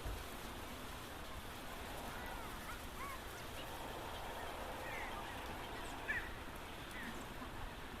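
Outdoor ambience: a steady background hiss with several short bird calls scattered through it.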